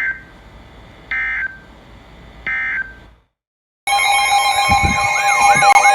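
Three short buzzy bursts of SAME digital data, the end-of-message signal that closes a NOAA Weather Radio warning. After a brief dead silence, a loud electronic siren-like alarm starts: steady tones under a fast, repeating rising-and-falling whoop.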